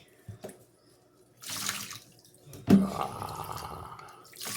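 Kitchen sink tap running to rinse a soapy puppy. There is a short spurt about a second and a half in, then water runs steadily from just under three seconds in.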